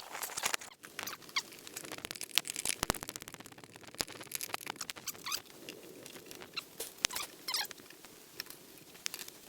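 Handling noise: irregular light clicks, taps and short rustling scrapes of objects being moved by hand.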